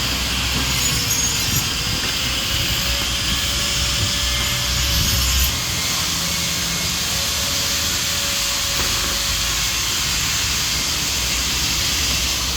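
A power tool cutting metal: a steady cutting noise with a faint motor tone that wavers slightly, as in machining the valve seats of a cylinder head. It stops right at the end.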